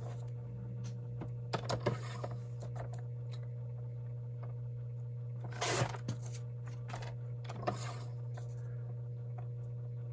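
Fiskars sliding paper trimmer cutting paper: the blade carriage is drawn along the rail in a few short swishes, about two seconds in and again around six and eight seconds. Small paper rustles and taps come in between, over a steady low hum.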